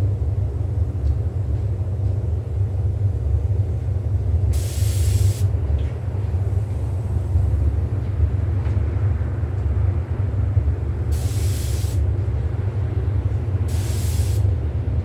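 Steady low rumble of the paint booth's ventilation, with three short hisses of compressed air from a paint spray gun: one about a third of the way in and two close together near the end.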